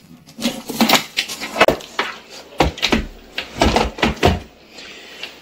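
Handling noise from an air conditioner's inverter circuit board being lifted and turned over on a workbench: a string of sharp knocks and clatters as the board and its attached parts and wires bump the bench, easing off near the end.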